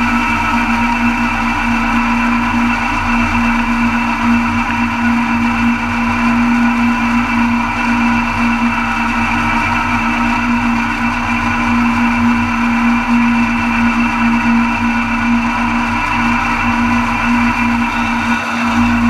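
A John Deere 70's two-cylinder engine running under load while the PTO-driven Mott 88 flail mower spins and chops tall grass: a steady mechanical drone with a constant whine.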